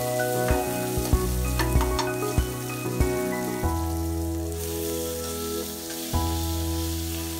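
Sliced onions sizzling in hot oil in an aluminium pressure cooker, with a steel ladle stirring and knocking against the pan several times in the first three seconds. Sustained background music notes run underneath.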